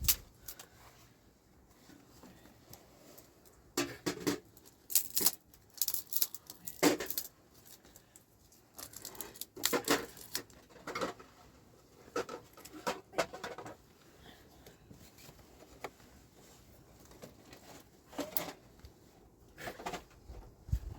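Irregular rustling, scraping and knocking of things being handled, coming in short bursts separated by quieter stretches.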